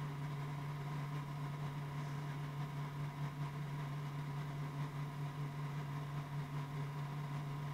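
Steady hum of machinery under load: the Zendure SuperBase Pro power station's cooling fans running hard while it powers a window air conditioner that is also running. A steady low hum with a fainter higher tone above it.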